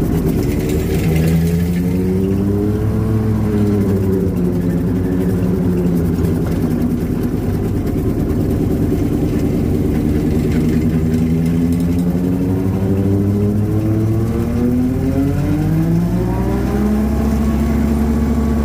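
Massey Ferguson 1532 compact tractor's diesel engine running hard, its pitch rising and sagging, then steady and lower for a while, then climbing to higher revs near the end.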